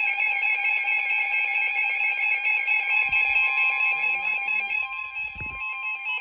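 Emergency Alert System attention tone sounding steadily, a steady electronic tone that heralds the next warning message. A second, higher tone joins about five seconds in, and two dull low thumps come around the middle and near the end.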